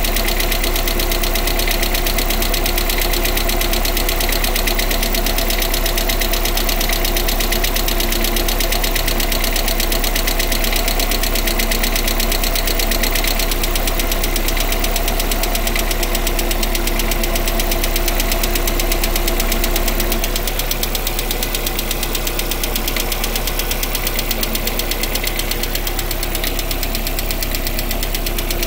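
Lada Priora engine running with a fast, even knocking. This is the knock that shows up after the car has stood for a long time, which the owner links to the hydraulic valve lifters or the piston group. The sound drops a little about 20 seconds in.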